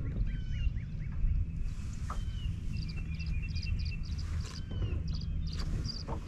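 Birds chirping and calling, with short repeated high notes and a few sharper single notes, over a steady low rumble.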